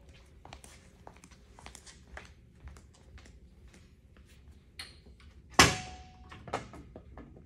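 Footsteps and light knocks on a concrete floor. About five and a half seconds in comes one loud metallic clank with a brief ring, as the adjustable bed foundation's metal frame is taken hold of for flipping. A smaller knock follows about a second later.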